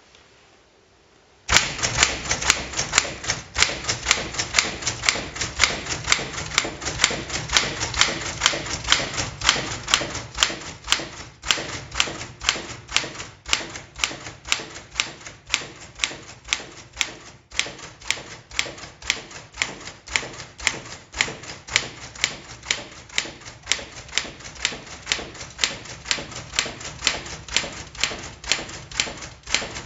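Smith-Corona Sterling manual typewriter being typed on: a steady run of sharp key strikes, about three a second, starting about a second and a half in.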